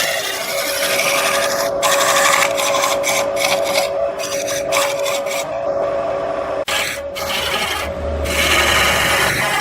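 Wood turning on a lathe, worked by a hand-held tool: a rasping scrape over a steady hum from the spinning lathe. The scrape breaks off briefly several times.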